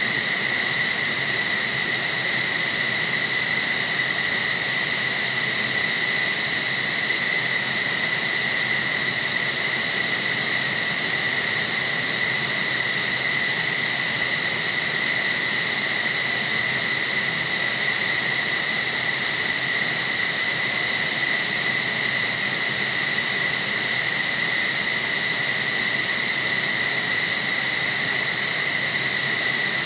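F-15SG fighter jet's engines running at ground idle: a steady high-pitched whine over a rushing hiss, unchanging throughout.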